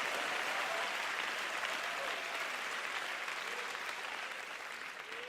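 A congregation applauding, with a few voices calling out over the clapping; the applause slowly dies down toward the end.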